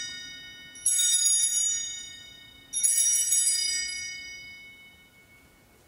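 Altar bells (sanctus bells) rung at the elevation of the chalice, marking the consecration. An earlier ring is still fading as two more rings come about a second in and near the three-second mark, each sounding bright and high and dying away slowly.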